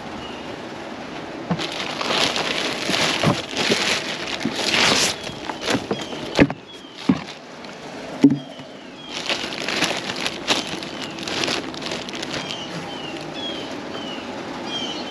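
Rustling and handling noise as clothes are pulled out of a plastic tub and a plastic trash bag. It comes in two irregular spells, with a few sharp knocks in between.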